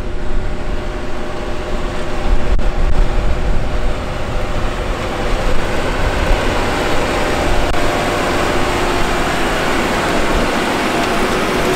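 Case IH 470 Quadtrac tracked tractor's diesel engine running steadily under load as it pulls a mulch finisher through the soil, a steady low rumble.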